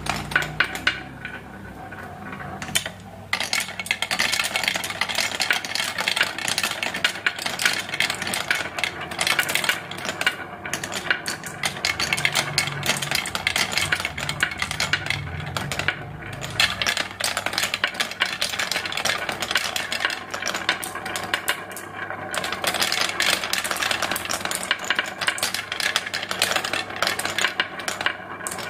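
Marbles rolling and clattering down a toy marble-run track: a dense, continuous rattle of rapid small clicks, with a few brief lulls.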